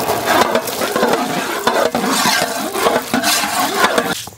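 Peeled shallots frying in hot sesame oil in a large pan: a dense, crackling sizzle as they are stirred with a ladle. It stops abruptly near the end.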